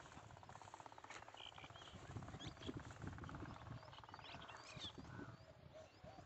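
Faint wind buffeting the microphone, with a few short, high bird chirps scattered through it.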